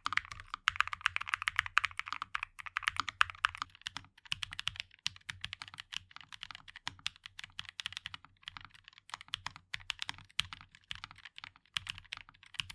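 Typing test on a NuPhy Nos75 low-profile mechanical keyboard with Gateron NuPhy N1 nano switches: rapid keystroke clacks, densest in the first few seconds and thinning out toward the end.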